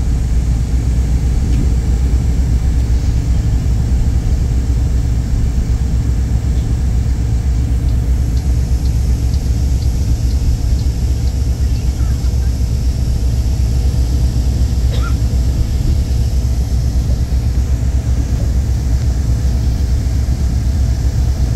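Steady low rumble of a moving train, heard from inside the passenger carriage.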